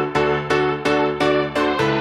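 Background music: a keyboard or electric piano playing quick repeated chords, about three a second, with a steady bass underneath.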